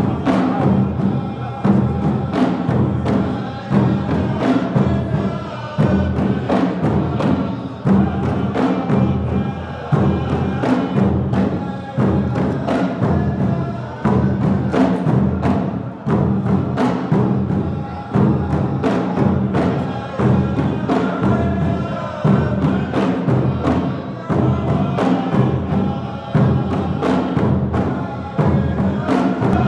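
Music with a steady, heavy drum beat.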